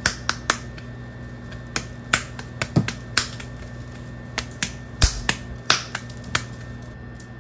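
Ground pork being slapped from palm to palm to shape a burger patty: sharp, wet slaps in irregular runs of a few per second, with short pauses between runs.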